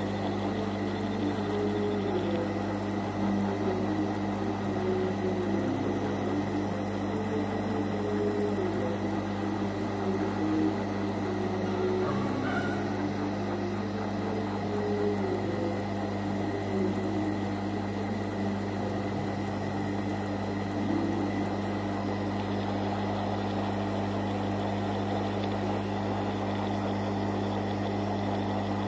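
Steady whirring of a hot-air soldering station's blower with a low electrical hum underneath, running without a break as solder on a circuit board is reflowed.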